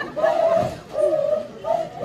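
Dabucuri dance: a group of dancers chanting in unison in long held calls at one steady pitch, each call about half a second long with short breaks between. A low thud comes about half a second in.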